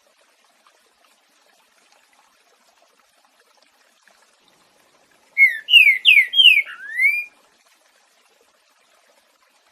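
Green-winged saltator (trinca-ferro) singing one 'boiadeiro'-type phrase about five seconds in: about five loud, clear whistled notes in two seconds, the first four sliding down and the last sliding up. A faint trickle of water runs underneath.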